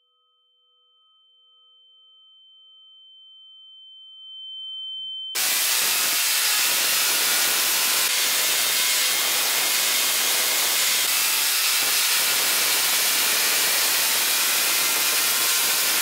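Steady pure electronic tones, one of them pulsing, slowly growing louder; then about five seconds in a spark-gap Tesla coil starts firing, a loud, steady hissing buzz of its arcs that cuts off suddenly at the end.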